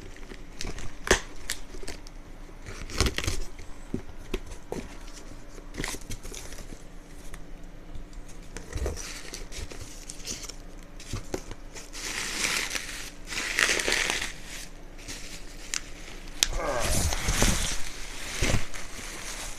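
A shipping box and its packing material being opened by hand: crinkling, crumpling and tearing, with scattered knocks from handling. Louder stretches of crinkling come about twelve seconds in and again near the end.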